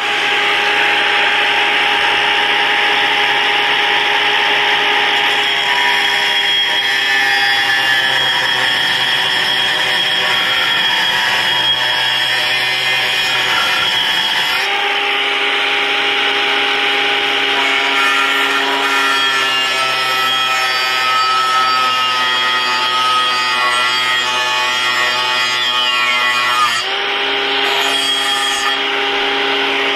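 Milwaukee cordless angle grinder grinding steadily against an ATV swingarm, taking the old spot-welded mounts off, with a continuous whine over the scrape of the disc on metal. The whine shifts pitch about halfway through and dips briefly near the end as the load on the disc changes.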